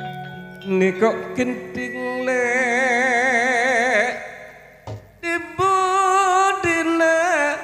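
A singer with gamelan accompaniment, holding long notes with a wide, fast vibrato in two phrases, one about two seconds in and the next about halfway through. Gamelan notes ring out and fade at the start.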